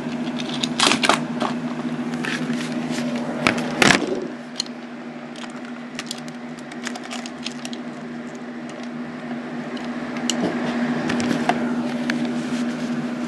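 Die-cast toy trains handled and pushed along plastic track: scattered clicks and knocks, with two louder clatters about one and four seconds in, over a steady low hum.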